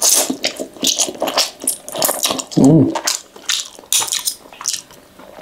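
Close-miked slurping and wet chewing of fried flat rice noodles (kwetiau goreng), with a run of quick lip smacks, and a short hummed "mm" about two and a half seconds in.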